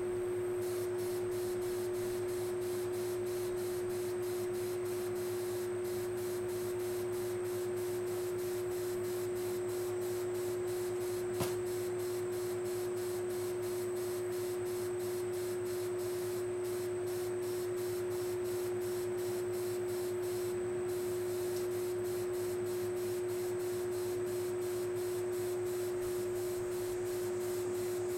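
A single sharp click from a training clicker about eleven seconds in, over a steady hiss with a constant hum.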